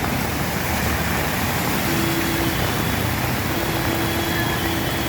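Steady street traffic noise with vehicle engines running. A faint steady tone comes in briefly about two seconds in and again near the end.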